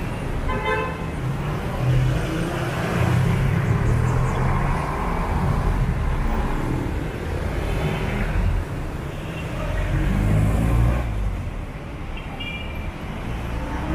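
Street traffic passing close by: jeepney, minibus and motorcycle engines running, the rumble swelling and fading as each vehicle goes past. Two short higher tones stand out, one near the start and one near the end.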